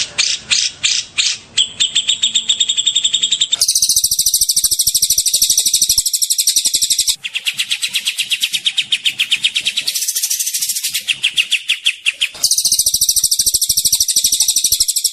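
Songbird recording of fast trilled 'tembakan' calls: long runs of very rapid, high, repeated notes. The pattern switches abruptly every few seconds, from slower separate notes at the start to dense high trills.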